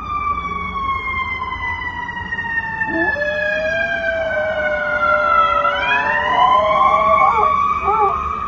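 Emergency-vehicle siren wailing: one long tone that falls slowly for several seconds and then sweeps back up. A second, lower wavering tone joins about three seconds in and breaks into short rising and falling glides near the end.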